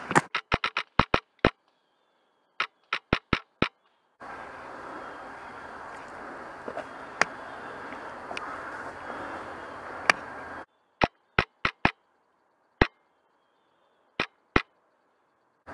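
Airsoft gun firing strings of sharp shots, about five a second: roughly seven in the first second and a half, five more around three seconds in, scattered single shots through the middle, and short groups of two to four near the end.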